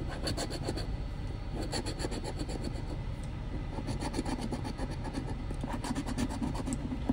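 A large metal coin scraping the coating off a paper scratch-off lottery ticket, in short runs of quick back-and-forth strokes with brief pauses between spots.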